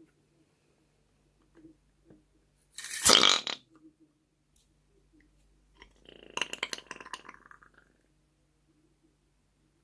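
Air escaping from a rubber balloon, its neck flapping in a rapid burp-like rasp for about two seconds, preceded about three seconds in by a short, loud rush of sound.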